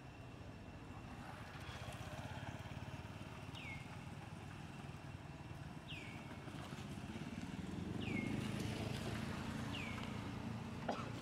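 Outdoor ambience: a motor vehicle's engine rumbling, swelling to its loudest about eight seconds in. A short falling whistle repeats about every two seconds, and there is a single click near the end.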